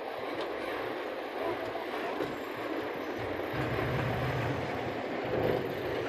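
Diesel engine of a loaded dump truck running as the truck drives slowly over dirt, its low drone growing louder about three and a half seconds in.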